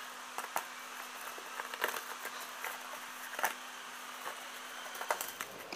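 A small cardboard box being handled and opened by hand: scattered light clicks and rustles of the cardboard over a steady hiss.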